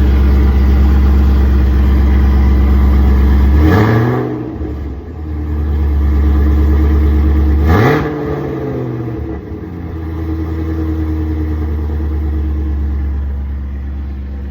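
2022 Chevrolet Camaro SS's 6.2-litre V8 idling, blipped twice, about four and eight seconds in, each time rising and falling back before settling to a steady idle. Its exhaust has just been repaired for leaks where the headers join the rest of the system, and it sounds better.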